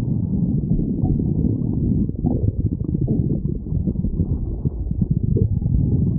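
A person's hungry stomach growling: a continuous low rumbling gurgle, full of small bubbling crackles.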